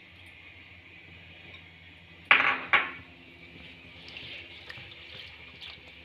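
Two sharp clanks on a cooking pot, about half a second apart and a little over two seconds in, with the pot ringing briefly after them. Then faint scraping as a ladle stirs the kadhi in the pot.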